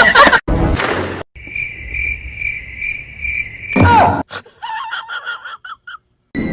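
Cricket chirping, about three chirps a second, broken off about four seconds in by a short, loud falling sound, followed by a run of quieter wavering sounds.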